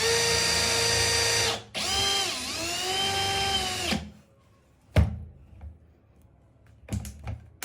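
Cordless drill spinning a 1 mm bit at high speed, a steady whine that stops briefly, starts again and sags in pitch for a moment under load before stopping about four seconds in. A sharp knock follows about five seconds in, and a couple of lighter knocks near the end.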